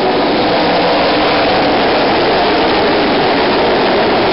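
Full-bodied ARCA stock cars racing past on a dirt track, their V8 engines running together in a loud, steady drone.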